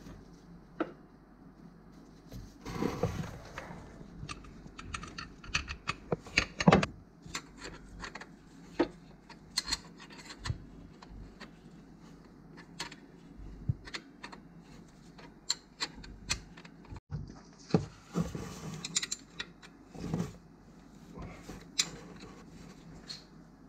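Hands and tools working a ribbed auxiliary belt onto the pulleys of an engine's accessory drive: scattered sharp clicks and knocks from parts and tools, with a few bursts of rubbing. The loudest knock comes about seven seconds in.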